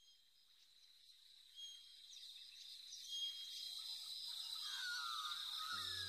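A steady high insect trill with chirping bird calls, fading in gradually. Soft sustained new-age music chords enter near the end.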